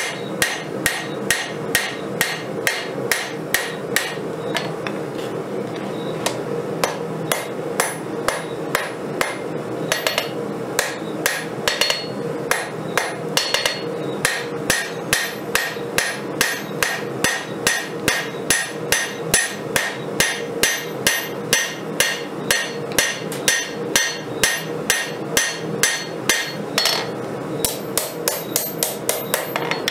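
Hand hammer forging hot 5160 steel on an anvil: a steady run of ringing blows, about two to three a second, with brief pauses, over a constant background hum.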